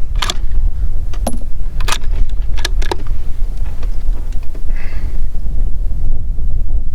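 Sharp metallic clicks of a Mossberg MVP Patrol's bolt being worked, about five in the first three seconds, as the spent case is cleared and the next 5.56 round chambered between shots. Steady wind rumble on the microphone underneath.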